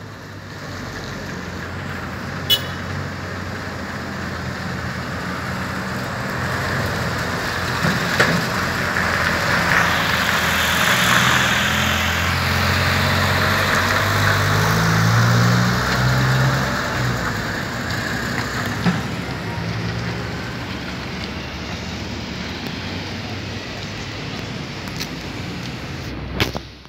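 Road traffic: a motor vehicle passes close by. Its engine hum and tyre noise swell and then fade over about ten seconds, loudest near the middle.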